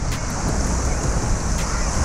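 Ocean surf breaking and washing up the beach, a steady hiss of white water, with wind buffeting the microphone in a low rumble.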